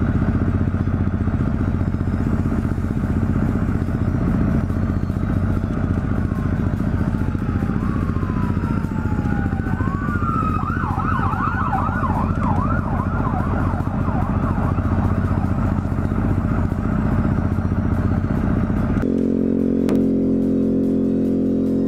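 Yamaha Zuma 125 scooter's single-cylinder four-stroke engine idling in traffic while a siren sounds in the distance, first a slow wail rising and falling, then a fast yelp about halfway through. About three seconds before the end the sound cuts abruptly to music.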